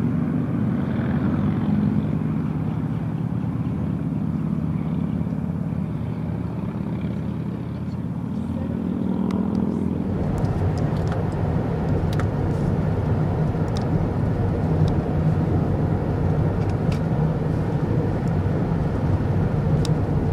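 Motor vehicle engines running with a steady hum that climbs in pitch about nine seconds in. About ten seconds in it gives way to a deeper, rougher rumble.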